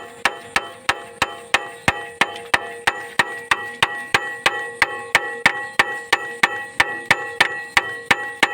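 Sharp metallic clicks in a steady, even rhythm, about three a second, each followed by a short ring.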